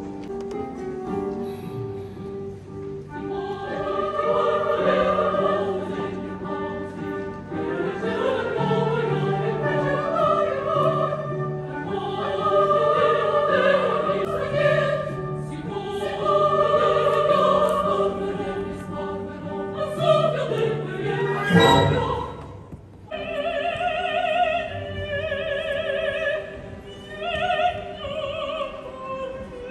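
Live opera sung with orchestra: a chorus of voices over the orchestra, then, about two-thirds of the way through, one female voice sings on alone with strong vibrato. A short noise is heard just before the solo voice begins.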